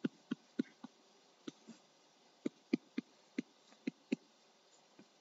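Stylus tapping and clicking on a tablet screen while an equation is handwritten: about a dozen faint, short taps at uneven intervals.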